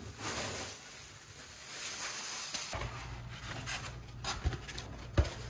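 Plastic packing wrap rustling as it is handled and pulled away, then foam packing blocks being lifted out of a 3D printer's enclosure. There are two sharp knocks near the end, the second the louder.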